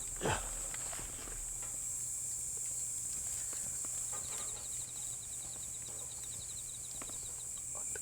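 Insects, crickets among them, chirring steadily in the woods, with a rapid cricket trill about four seconds in. A brief knock sounds just after the start.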